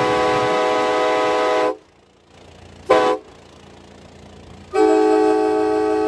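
Nathan K5LA five-chime train air horn from a 1977 Amtrak FL9 sounding its chord. A long blast cuts off a little under two seconds in, a short toot follows about three seconds in, and another long blast begins near five seconds in. Low vehicle and road noise fills the gaps.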